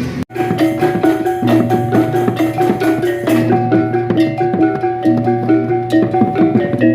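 Balinese tektekan ensemble: pitched bamboo slit drums struck with sticks in fast, interlocking repeating patterns. The sound cuts out briefly just after the start.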